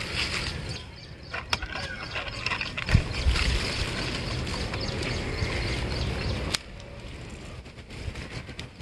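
A plastic snack packet crinkling and rustling as a hand rummages inside it, cutting off suddenly after a few seconds. A few sharp clicks and a low knock come before it.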